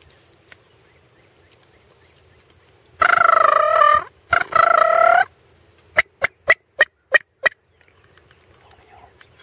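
Loud, close turkey calling: two long wavering calls of about a second each, then a quick run of six short, sharp notes.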